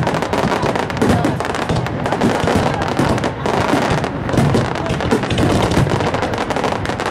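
Barrage of aerial fireworks shells bursting over the water: a dense, unbroken run of pops and bangs at a steady loud level.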